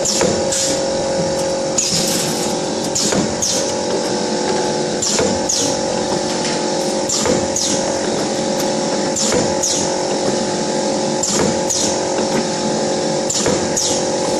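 YX400 wire-cut cookie machine running: a steady mechanical hum, with a pair of short hisses that fall in pitch repeating about every two seconds.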